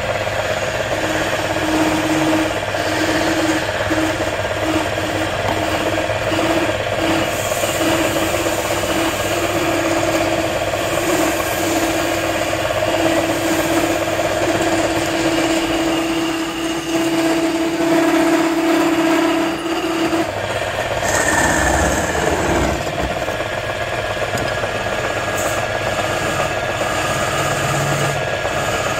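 Wood lathe running steadily while sandpaper is pressed against a spinning wooden ball, giving a humming tone that comes and goes in short pulses, then holds steady and stops about two-thirds of the way in. A low knock follows shortly after.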